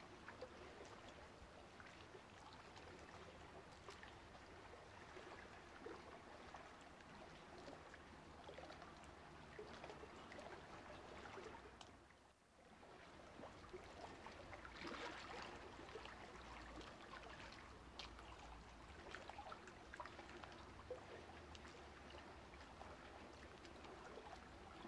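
Near silence: a faint, even hiss with light crackle, dipping away briefly about halfway through.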